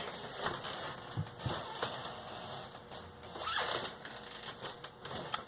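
Carpenter pencil scratching along foam board while marking out pieces, with a few small ticks and taps.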